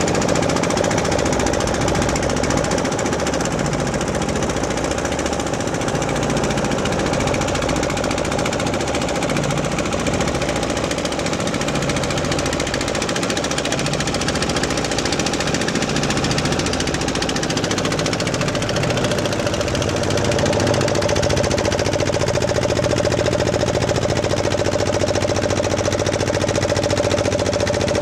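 A boat's engine running steadily with a rapid, even pulse. About twenty seconds in it grows slightly louder and its hum steadies.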